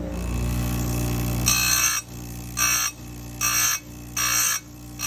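Oregon 410-120 bench chain grinder's motor running with a steady hum, then, starting about a second and a half in, the grinding wheel touching a chainsaw chain cutter in five short rasping bursts about one every 0.8 s. The short repeated touches are the tapping method for keeping the cutter from overheating and losing its temper.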